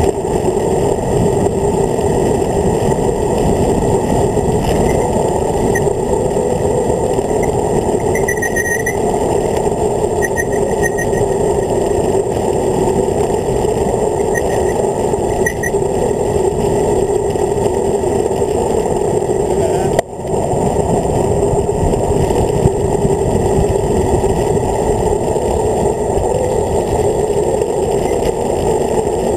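Loud, steady rush of wind over a handlebar-mounted camera on a road bike coasting fast downhill, with a few short high chirps between about five and sixteen seconds in and a brief dip about twenty seconds in.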